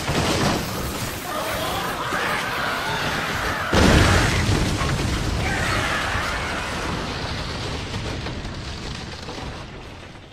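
Explosion sound effect: a loud crash near the start, then a heavy boom about four seconds in that rumbles on and slowly fades, with high wavering tones over it.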